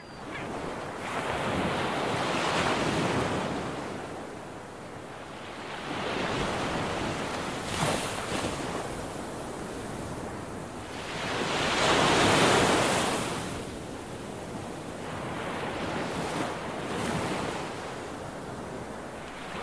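Sea waves rolling in and washing out, the hiss of surf swelling and fading four times, the largest swell about twelve seconds in.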